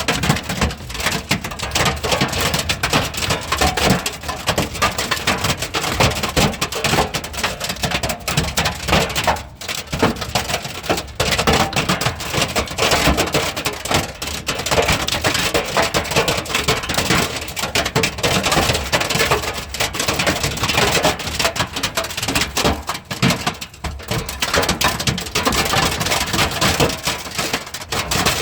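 Heavy hail falling, a loud, dense and irregular clatter of hailstones striking hard surfaces without letup.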